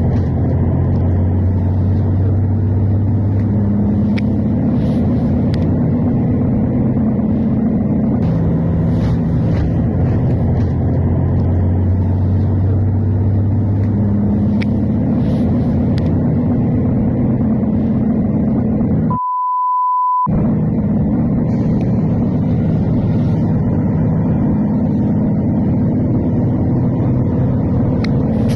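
Steady loud rumbling noise with a low hum that shifts in pitch every few seconds. About two-thirds of the way through it cuts out for about a second, replaced by a single steady high beep.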